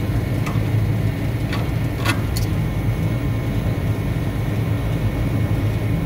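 Steady low machinery hum of rooftop equipment, with a few light metallic clicks from hand tools working on the refrigeration fittings during the first couple of seconds.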